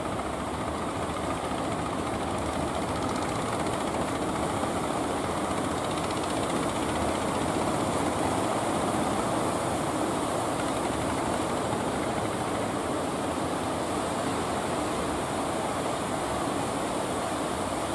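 Steady rumbling wash of surf breaking on the beach, mixed with the running drone of a wooden fishing boat's engine as it comes in through the waves.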